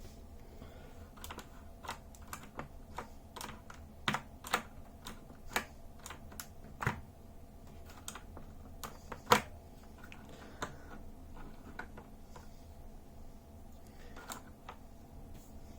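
Razer BlackWidow Chroma V2 mechanical keyboard with Razer Green clicky tactile switches, keys pressed in an irregular, unhurried rhythm. The keystrokes thin out after about ten seconds, and one is clearly louder about nine seconds in.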